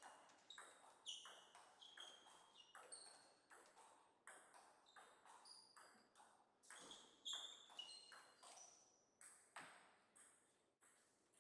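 Table tennis balls striking bats and tables, a sparse train of sharp clicks about two a second, each with a short high ping.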